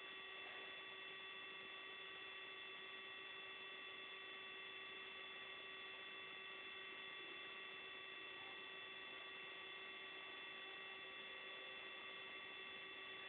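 Faint steady electrical hum and hiss, with several fixed whining tones held unchanged throughout; no other sound stands out.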